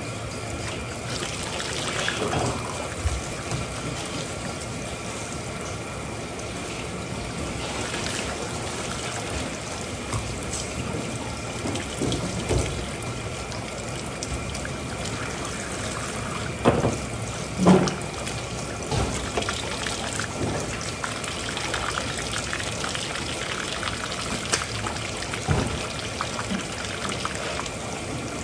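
Water running and trickling steadily, with scattered knocks and clatters; the loudest come as a pair about two-thirds of the way through.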